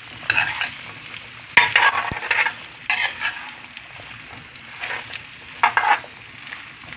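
Whole jalapeño peppers with onion and carrot frying in a glazed clay cazuela and being stirred with a spatula: a steady light sizzle under several short bursts of scraping and tumbling, the loudest about one and a half to two and a half seconds in and again near six seconds.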